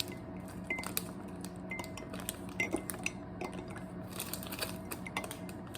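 Spoon stirring instant coffee in a cup, clinking irregularly against the sides, some taps ringing briefly.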